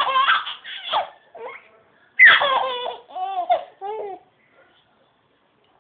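A baby laughing out loud in bursts: a long, loud laugh about two seconds in, followed by a few short, quick laughs, then it falls quiet near the end.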